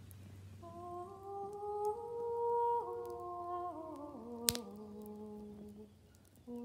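A wordless hummed melody of slow, held notes that step gradually downward in pitch, with a room echo. A single sharp crackle sounds about four and a half seconds in.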